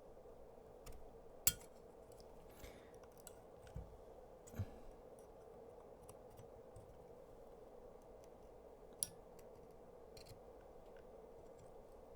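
A few faint, sharp clicks and snips from hand tools working on a lithium-ion battery pack during a cell replacement, the loudest about a second and a half in and others near the middle and about nine seconds in, over a steady faint hum.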